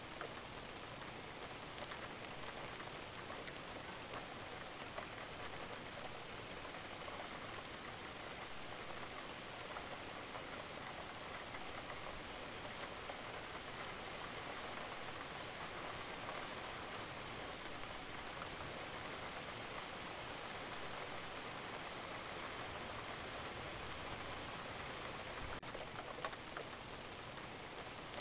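Steady rain falling, an even hiss of rain on a surface, with a few faint ticks near the end.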